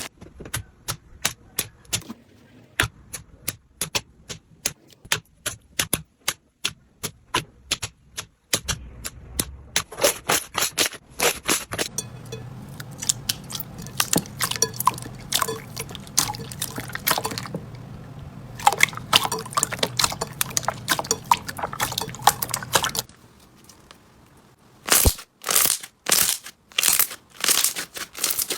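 Slime being worked by hand: a long string of sharp, wet clicks and pops, spaced out at first and later coming thick and crackling.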